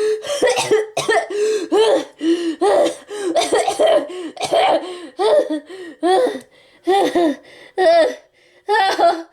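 A person's voice making a long run of short, pitched, cough- or laugh-like vocal sounds, about three a second, spacing out toward the end.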